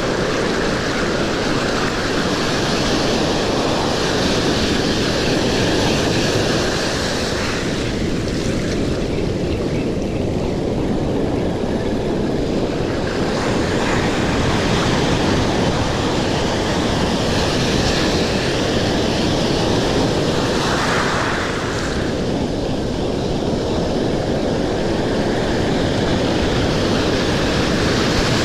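Ocean surf washing in and breaking close by in a steady, loud rush, with wind on the microphone.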